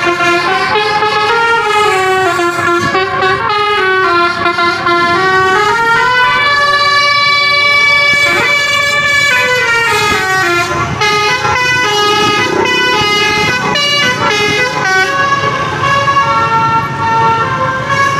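Tour bus's telolet horn, a multi-trumpet air horn playing a melody: chords of several notes stepping from pitch to pitch, with sliding siren-like notes in between and one chord held for about two seconds near the middle.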